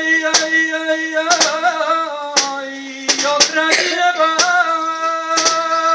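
A man singing a saeta, the unaccompanied flamenco-style Holy Week song to a religious image, in long held notes with wavering ornaments. A sharp knock sounds about once a second under the voice.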